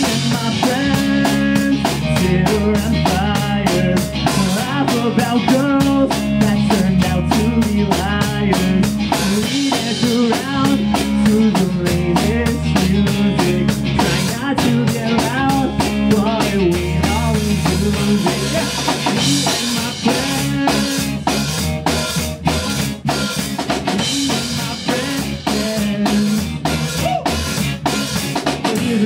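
Live pop-punk band playing a full-volume instrumental stretch: drum kit with a steady driving beat of snare and kick, over bass and electric guitars.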